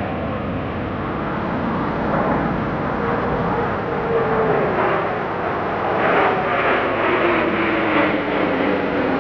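Jet aircraft passing overhead: a steady engine rush with a whine that falls slowly in pitch over the second half, turning rougher and pulsing in the last few seconds.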